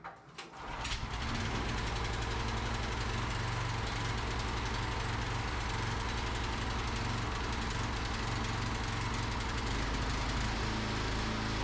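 An engine catches about a second in and runs at a steady speed with no revving.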